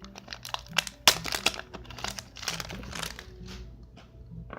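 Foil wrapper of a Pokémon trading-card booster pack crinkling and crackling as it is torn open and handled: a run of sharp crackles that thins out near the end.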